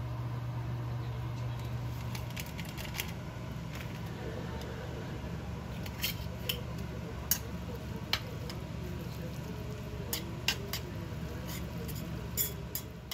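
A metal utensil clicking and scraping against a stainless steel pan as instant jjajang noodles are stirred with their sauce, with scattered sharp taps through the second half. A steady low hum stops about two seconds in.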